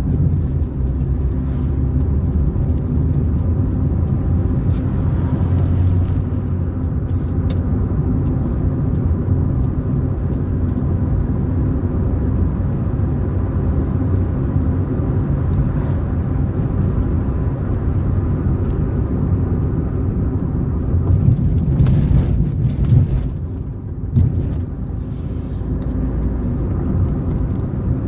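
Car being driven along a road: steady low engine hum and road rumble, with a louder rush of noise a little past the middle.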